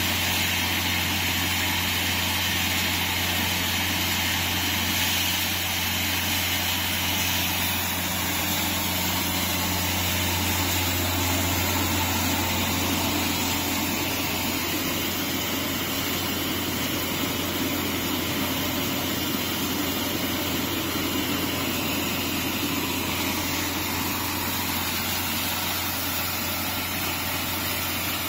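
Horizontal plastic-flake dryer running: a steady low motor hum under an even whirring rush.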